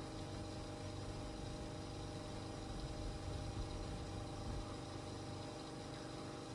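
Car engine idling: a low, steady hum.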